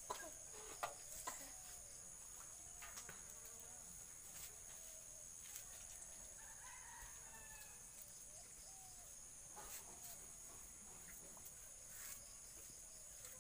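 Faint outdoor ambience: a steady high-pitched insect drone with soft clucking of chickens, and a few sharp clicks in the first second or two.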